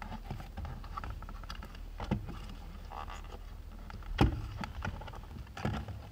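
Plastic centre-console tunnel trim being pried up by hand around the gear lever: a few sharp clicks and knocks as its stiff clips let go, the loudest about four seconds in, over a low steady hum.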